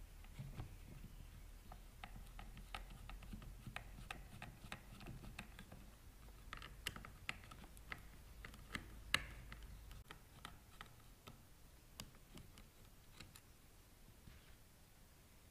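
A screwdriver backing out small screws from the metal bracket of a Minn Kota Maxxum trolling motor head. It makes faint, irregular clicks and ticks of metal on metal, busiest a little past the middle, with one sharper click near the middle.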